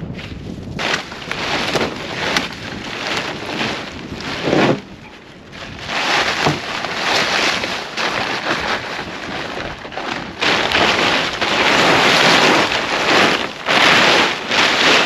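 Snow and junk being dug and cleared off a buried snowmobile: irregular scraping, crunching and rustling in uneven surges, louder in the second half, with wind buffeting the microphone.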